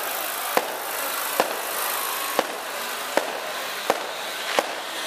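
Fireworks going off in a steady series of sharp bangs, about one a second, over the murmur of a crowd.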